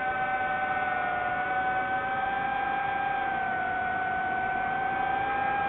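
DJI FPV drone's motors and propellers whining steadily, a high held tone that sags slightly in pitch around a second in and again about halfway through as the throttle eases.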